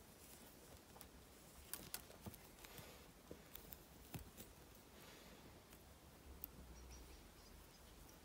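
Faint, scattered small clicks and ticks of thin copper wire being wrapped by hand around a copper pendant frame.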